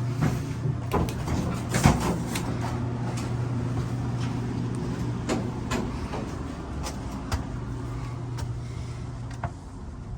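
Steady low hum inside a stainless-steel passenger rail car, with scattered knocks and clicks, the loudest about two seconds in, from someone walking through the car and its doors.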